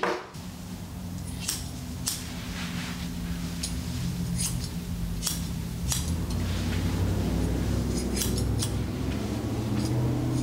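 Steel grooming shears snipping through a dog's thick fur in irregular cuts, a dozen or so crisp snips, over a low steady hum.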